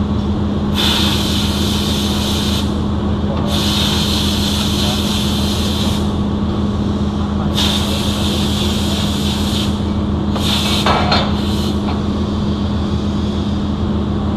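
Steady electrical hum of pipe-welding shop equipment, broken by four hissing bursts of about two seconds each.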